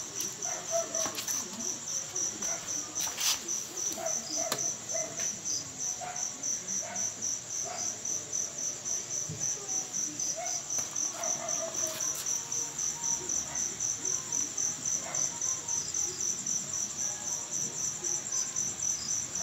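Insect chirping in a steady, even, rapidly pulsing trill, with a few faint clicks.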